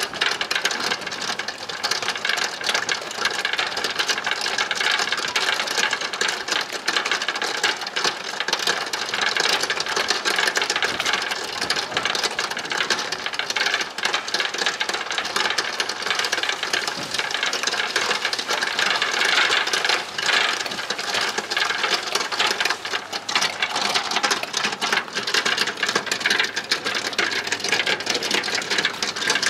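A steady, fast mechanical rattle that goes on without a break.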